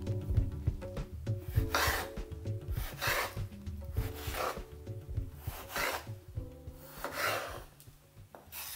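Five scraping strokes, about one every second and a half, over soft background music.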